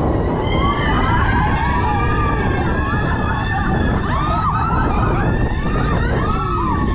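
Roller coaster train rumbling along its track, with several riders screaming and whooping from about half a second in, their overlapping cries rising and falling in pitch.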